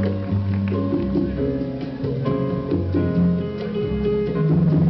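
Music for a stage dance routine, with a bass line that steps from note to note under held higher notes, played loud.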